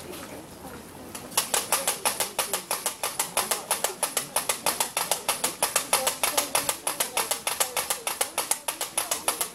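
Matraca, the wooden ratchet-clapper sounded in Holy Week processions in place of bells, clacking fast and evenly at about seven sharp clacks a second. It starts suddenly about a second in.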